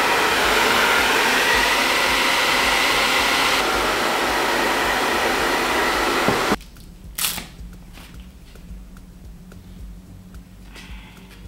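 Wahl hand-held hair dryer blowing steadily, a rush of air with a faint high whine, switched off suddenly about six and a half seconds in.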